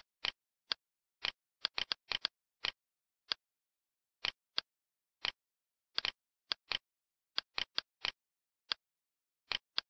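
Computer mouse button clicks, irregular, singly and in quick pairs (press and release), with dead silence between.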